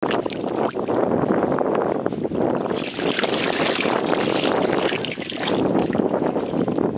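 Shallow muddy water splashing and sloshing as a plastic basket is dragged and lifted through it, mud dripping back out, with wind noise on the microphone.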